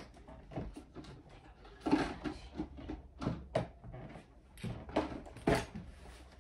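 Handbags being handled: irregular knocks and rustles of straps and bag hardware as the bags are lifted, swapped between hands and one is slung over the shoulder, with the sharpest knocks about two seconds in and again after five seconds.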